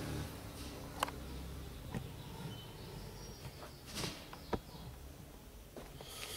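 Faint handling noises as a suitcase's fabric lining is pulled back by hand: a few soft clicks and rustles, the clearest about four seconds in, over a low background hum.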